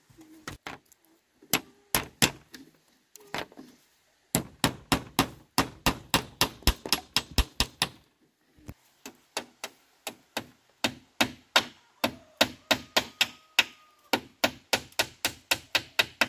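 A fast, regular run of sharp strikes, nearly four a second, like a blade or hammer hitting wood: a few scattered blows at first, then two long steady bouts with a short pause about eight seconds in.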